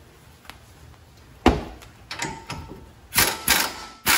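Pneumatic impact wrench hammering in short bursts on the 21 mm bolts that hold the steering knuckle to the strut, breaking the threadlocked bolts loose. A sharp knock comes about a second and a half in, and the bursts grow louder and longer in the last second or so.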